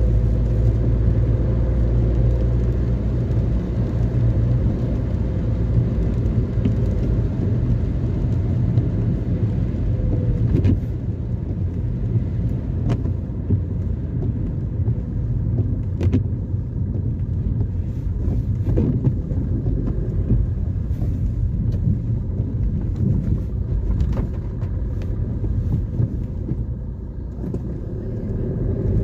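Car on the move: a steady low rumble of engine and tyres on the road, easing slightly about a third of the way through, with scattered faint ticks.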